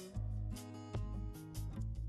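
Background music, with bass notes and pitched notes changing about every half second.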